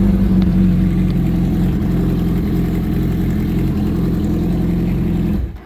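Suzuki motorcycle engine idling steadily, running only because its clutch safety switch is bypassed, which shows the clutch switch is bad. The engine cuts off abruptly near the end.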